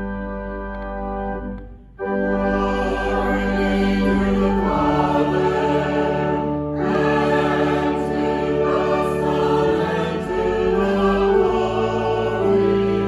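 A sustained organ-like chord, then, from about two seconds in, a choir singing with keyboard accompaniment.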